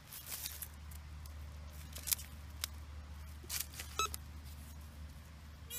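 Pinpointer probing the loose soil of a dig hole: several short scratchy scrapes in the dirt, a brief electronic chirp about four seconds in, and the pinpointer's steady beep starting at the very end.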